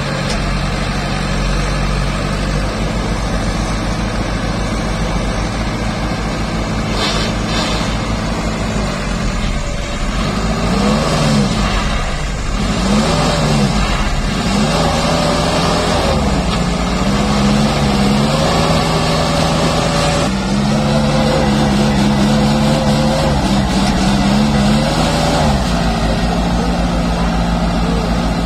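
Tumosan 8195 tractor's diesel engine working hard with its wheels dug into loose soil. It runs steadily at first, then from about a third of the way in its pitch rises and falls again and again as it is revved up and eased off.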